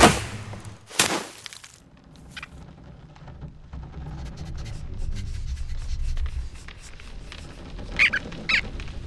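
Cartoon sound effects from an animated short: a sharp hit at the start and another about a second later, then a low rumble that builds, and two short squeaky chirps near the end.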